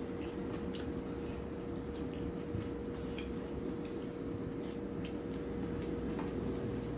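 Fingers mixing rice and vegetable curry on a steel plate: soft squishing with scattered light clicks against the metal, over a steady hum.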